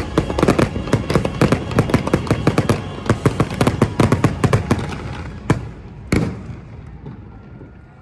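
Fireworks finale: a rapid, dense barrage of cracks and booms for about five seconds, then two last separate bangs, and the sound dies away.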